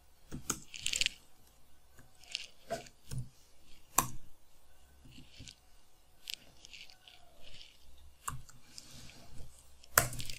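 Computer keyboard keystrokes: sparse, irregular clicks and taps, the sharpest about four seconds in and near the end.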